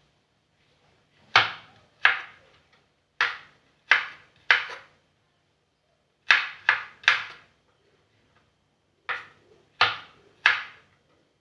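Sharp knocks on wood in four groups of two or three strikes, the strikes about half a second apart.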